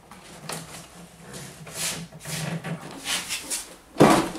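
Citroën DS front wing being worked loose and lifted off: short bursts of rubbing and scraping as the panel moves against the body, with one loud knock about four seconds in.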